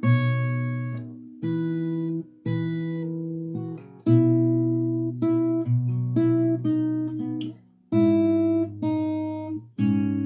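Acoustic guitar played fingerstyle: a chord-melody passage of plucked bass notes and chords, each struck and left to ring and fade, with a new chord every second or two.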